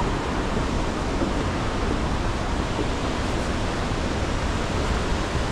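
Rushing water of a waterfall: a steady, even noise with no breaks.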